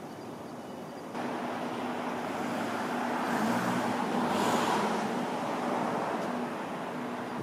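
City road traffic noise: a passing car's tyre and engine noise swells to a peak about halfway through and then fades, over a steady low hum.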